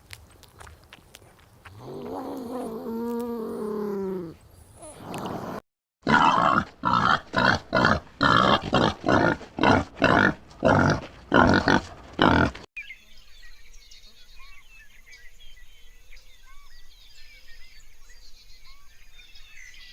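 A big cat roaring: a drawn-out call that bends in pitch, then a run of loud rhythmic roaring grunts about two a second. After these, faint high chirping of birds or insects.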